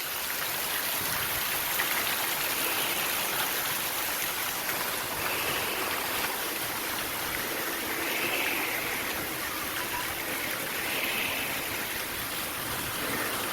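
Steady rush of running and splashing water from the water park's pool features.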